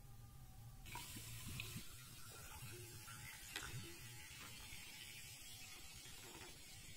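Faint fizzing of soda water poured over ice into a tall glass, with scattered small ticks of bubbles and ice. The fizz starts about a second in.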